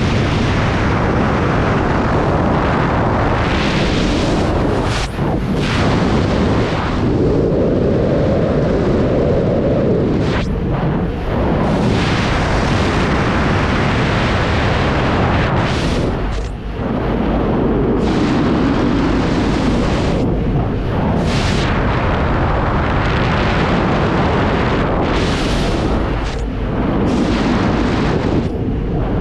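Freefall wind rushing and buffeting hard over a skydiving camera's microphone, loud and unbroken, thinning briefly now and then as the flyer's position in the airflow changes.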